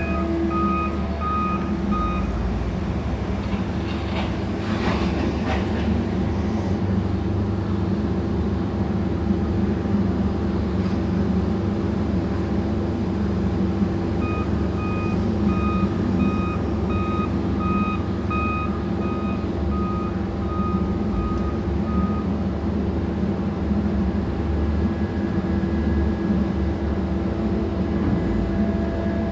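Electric Mantsinen 95 hydraulic material handler running with a steady hum as it swings its clamshell grab. A warning alarm beeps about twice a second at the start and again for about eight seconds in the middle, and there is a brief rushing noise about five seconds in.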